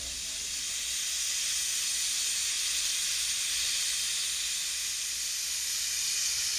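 Steam locomotive venting steam in a steady, loud hiss that swells over the first second and then holds.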